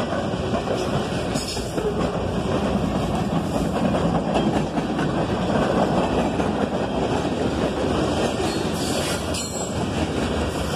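Freight cars of a CSX freight train rolling past close by: a steady rumble and rattle of steel wheels on the rails.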